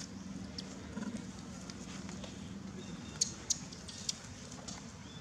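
A few sharp clicks and cracks, the loudest three coming between about three and four seconds in, over a steady low hum that fades out about three seconds in.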